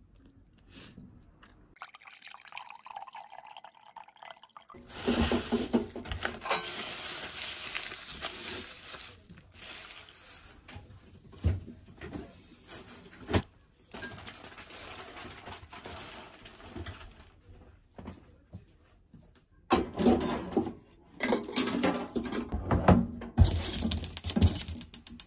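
Water running from a kitchen tap, with a few brief pauses and clinks. Later it gives way to irregular clatter and knocks of kitchen items being handled.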